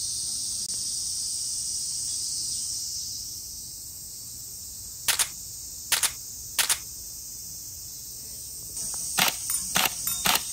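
M4-style airsoft rifle firing single shots: three sharp cracks about half a second apart midway, then a quicker string of shots near the end. A steady high-pitched hiss of insects runs underneath, fading a few seconds in.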